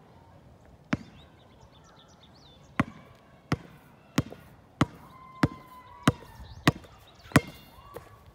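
Basketball being dribbled: one bounce, then after a pause a steady run of about eight bounces, roughly one and a half a second.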